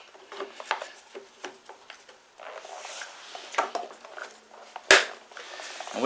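Air cleaner being fitted back onto a push mower's engine by hand: scattered light clicks, knocks and rubbing of parts, with one sharp click near the end as it seats.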